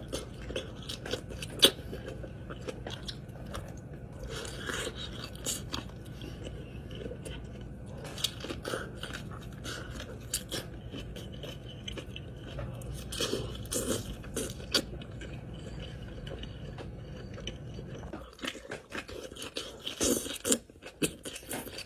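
A person eating close to the microphone: bites and chewing with short crunches and crackles, some of them loud.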